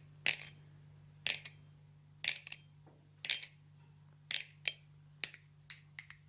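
Bushing balisong (butterfly knife) being flipped, its metal handles clacking together about once a second, often with a quicker second click just after. The pivots are freshly oiled with Hoppe's No. 9 gun oil.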